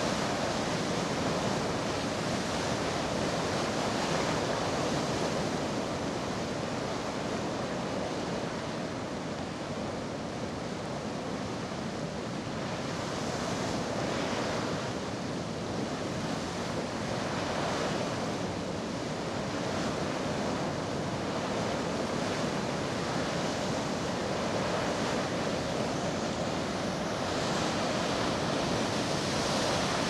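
Geyser erupting: a steady rush of splashing water and venting steam that swells and eases a little, with some wind on the microphone.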